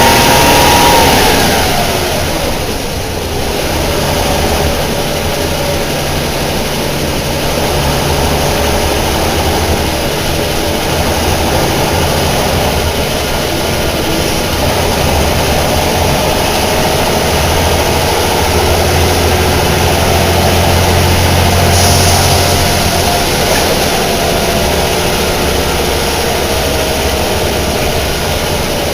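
Deutz BF6L 913 C air-cooled turbo-intercooled six-cylinder diesel of a city bus running under load. Its pitch drops about a second in, then climbs slowly in long pulls, as it does when the bus accelerates through the gears of its manual gearbox. There is a brief hiss about three quarters of the way through.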